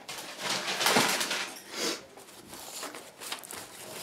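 Paper towel rustling and crinkling as it is handled and bunched up, loudest in the first two seconds, followed by softer rubbing and handling noises.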